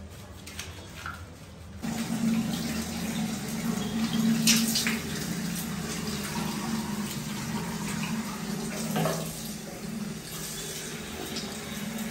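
Water running and splashing into a bathroom washbasin, poured from a jug over a cat being rinsed of shampoo. It starts suddenly about two seconds in, after a quieter moment, and then runs on steadily with a few louder splashes.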